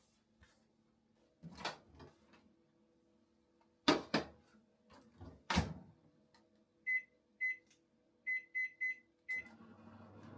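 Microwave oven being loaded and started: a few knocks and clunks as the door is handled and a container set inside, then short keypad beeps, two and then three, a final beep, and the microwave starts running with a steady hum near the end.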